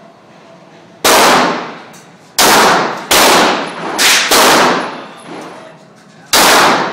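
Six pistol shots fired at an uneven pace, two of them in quick succession a little past the middle, each one ringing on in the echo of an indoor range.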